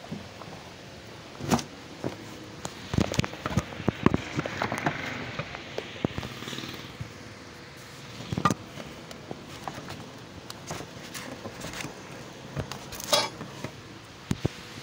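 Cardboard carton and paper being handled during packing: rustling and crinkling with scattered knocks and taps, densest a few seconds in, with single sharp knocks about halfway and near the end. Handling rubs from fingers close to the phone's microphone.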